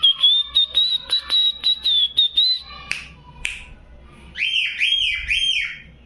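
Cockatiel whistling: a long high held whistle with quick clicks running through it, then, about four and a half seconds in, a run of four swooping whistled notes.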